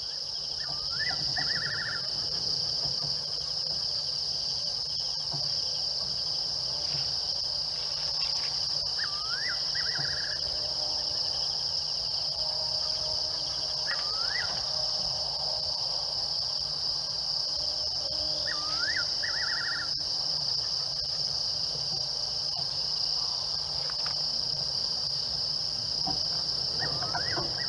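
A steady, high-pitched chorus of crickets or other insects at night. A short rising call ending in a quick trill repeats about every four to five seconds above it.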